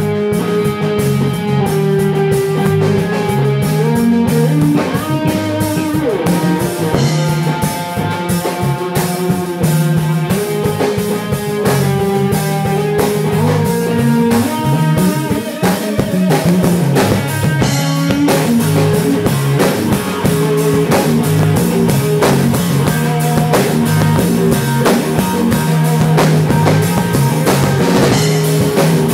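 Live blues band playing an instrumental passage: electric guitar over electric bass and a drum kit, keeping a steady groove.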